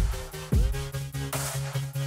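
Electronic background music with a steady beat: kick drum hits over a stepping bass line, with bright cymbal-like hits.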